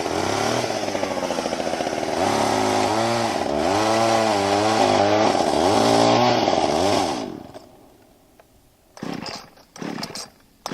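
Chainsaw engine revving up and down over and over, then dying away about seven seconds in, followed by a couple of short blips.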